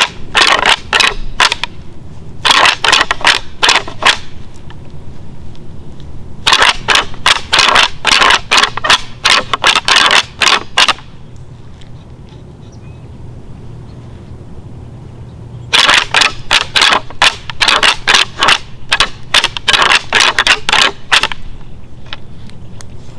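A pair of deer antlers rattled together in four bouts of rapid clacking, the last two longer, with short pauses between. This is antler rattling, a call that mimics two bucks fighting to draw deer in.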